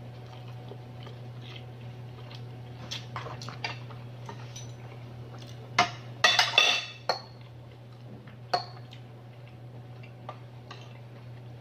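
A metal fork clinking against a plate and picking at a cooked crab's shell, in scattered sharp clicks, loudest in a quick cluster about six seconds in. A steady low hum runs underneath.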